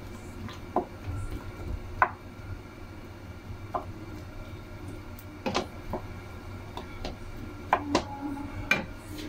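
Wooden spatula knocking and scraping against a nonstick frying pan while stirring frying tomato wedges: about ten irregular knocks, the sharpest about two seconds in and near the end, over a steady low hum.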